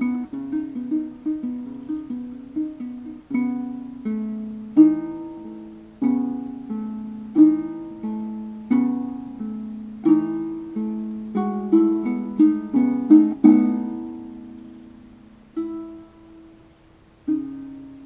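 A ngoni, the West African plucked harp-lute with a gourd body, played as a melody of single plucked notes that each ring and fade. There is a quicker run of notes a little past the middle, then two lone notes near the end, the last left to ring out.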